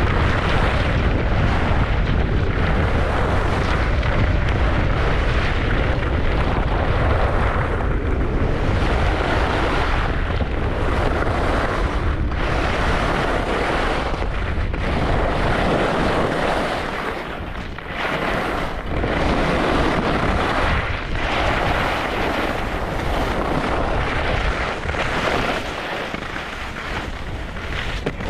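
Wind buffeting the microphone of a camera on a fast ski descent, with skis hissing and scraping on the snow, the hiss swelling and fading every couple of seconds. The low rumble of the wind eases about halfway through.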